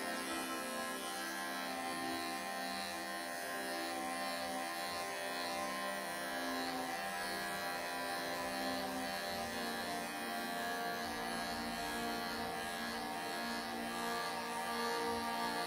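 Background music with long held, drone-like tones, with the buzz of electric pet clippers running underneath as they cut through matted fur.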